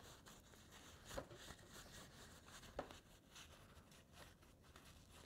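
Near silence, with faint rustling and two light clicks as a paper towel is worked into an AR rifle's upper receiver, about a second in and near three seconds in.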